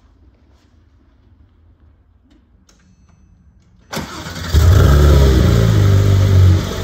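Porsche 911 GT3 RS 4.0's naturally aspirated 4.0-litre flat-six being started: after a few quiet seconds, the starter cranks briefly, the engine catches, flares up and holds loud at a raised idle, then settles to a lower idle near the end.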